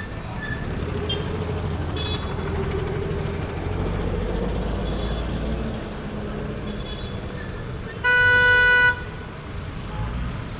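Street traffic: a steady low rumble of passing cars and engines, with one loud car horn honk lasting about a second near the end.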